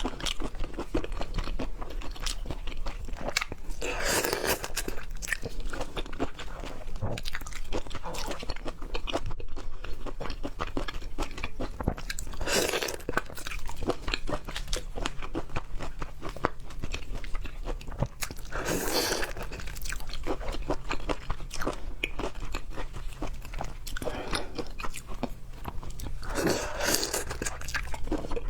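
Close-miked chewing and biting of raw seafood, a steady run of crunchy, wet mouth clicks, with a louder burst every six to eight seconds.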